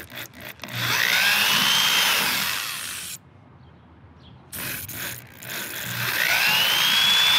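Cordless DeWalt drill boring through a Jeep hardtop with a 1/4-inch bit in two runs. Each time the motor whine rises in pitch and then falls away. There is a brief stop about three seconds in, and a few clicks come just before the first run.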